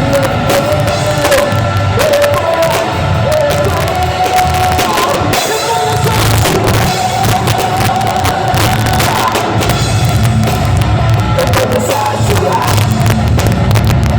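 Band music: a drum kit keeping a busy beat over a steady bass, with a melody line that moves and is held.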